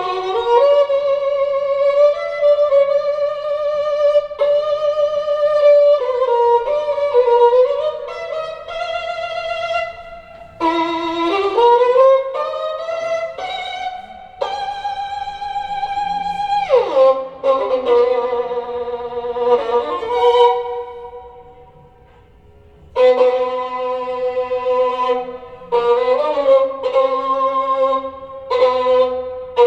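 Solo violin music played back over Børresen Z2 Cryo Edition loudspeakers. A single melodic line with vibrato runs through, with a long downward slide a little past the middle and a brief pause after it.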